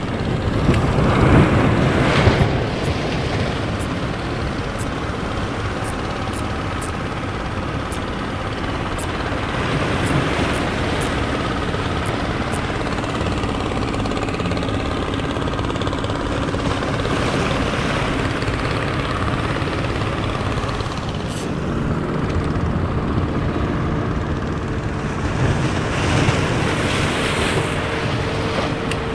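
Sea surf washing over breakwater rocks, mixed with the steady drone of motorised fishing boats passing offshore. The surf surges louder about a second in and again near the end.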